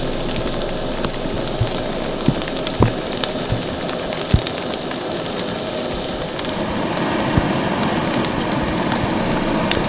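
Steady rain falling, with scattered sharp pops and crackles from a damp wood campfire that is struggling to burn.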